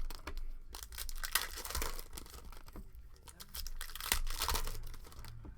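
Plastic trading-card packaging being handled, with irregular crinkling and tearing sounds.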